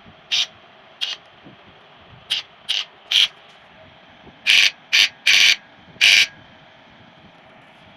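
A series of short, irregular mechanical rasps, about nine in all, some in quick pairs. They sound like a ratchet or gears.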